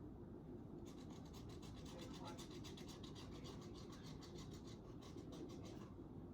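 Faint, fast scratching of coloring strokes on a craft birdhouse, about nine strokes a second. It starts about a second in and stops shortly before the end.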